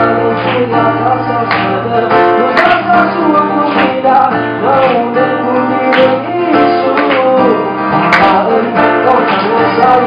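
Live acoustic performance: a man sings a slow melody while strumming an acoustic guitar, with a strong strum about once a second.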